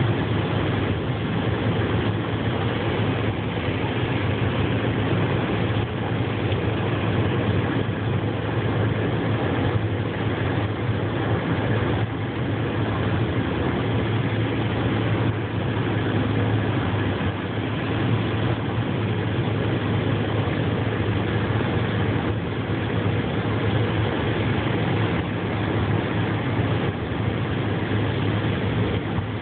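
Steady road and engine noise heard inside a car cruising at freeway speed, a constant hiss of tyres and wind over a strong low hum.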